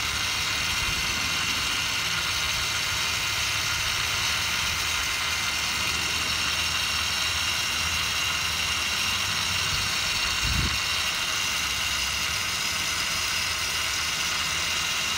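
DeWalt rotary polisher running steadily at between 1,000 and 1,400 RPM, spinning a flex-shaft attachment with a small polishing pad: a steady motor whine with a low hum under it. A brief low thump comes about ten and a half seconds in.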